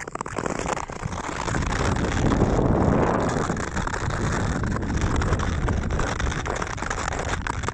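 Wind rushing over the microphone of a skater moving across a frozen lake, with the scrape and crackle of Nordic skate blades on the ice underneath. The wind noise swells about two to three seconds in.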